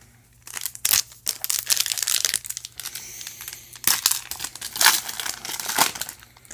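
A 2019 Leaf Draft foil trading-card pack being torn open and its wrapper crinkled in the hands. A run of crackling starts about half a second in.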